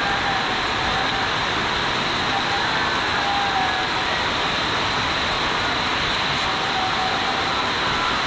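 Heavy rain pouring down steadily, a dense even hiss, with a few faint brief tones in the background.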